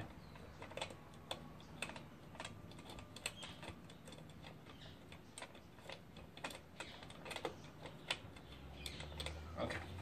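Faint, irregular light clicks and ticks, a few a second, as the nut holding a ceiling fan's light housing is turned by hand and the housing shifts.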